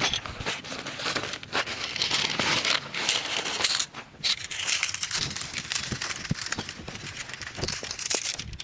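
Irregular crinkling and rustling, like plastic sheeting or a tarp being handled, with scattered small clicks.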